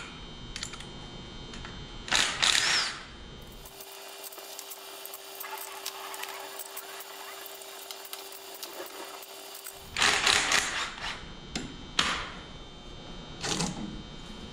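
Cordless drill with a socket extension spinning out the oil pan bolts on a Ford Model A four-cylinder engine. It runs in several short bursts, each under a second.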